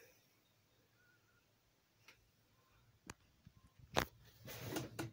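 Mostly quiet, broken by sharp clicks about two, three and four seconds in, the one at four the loudest, then a short rustle and one more click near the end: handling noise from the camera or phone being moved.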